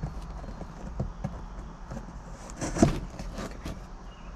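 A dull knife sawing through packing tape on a cardboard box: scattered scrapes and small clicks, with one louder tearing rasp about three seconds in as the box is opened.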